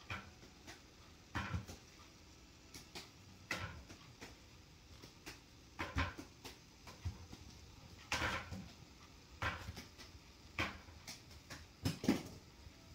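Pot of beef broth at a boil under a glass lid, giving short sudden puffs and clinks at irregular intervals of about one to two seconds as the boil jostles the lid.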